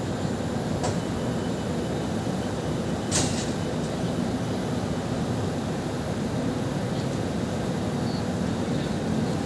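Kaohsiung light rail tram creeping slowly into a station, a steady low running hum. A brief sharp click comes about three seconds in.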